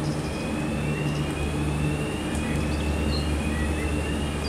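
Gondola lift haul rope running over a tower's sheave rollers: a steady low mechanical hum, with a few slow rising whines over it.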